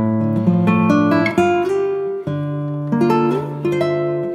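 Acoustic guitar strummed, moving through a chord change every second or so.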